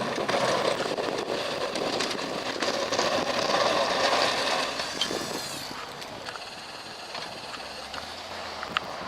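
Chevy pickup plow truck working through deep snow, a rushing noise that builds and then fades after about five seconds, with a few sharp clicks.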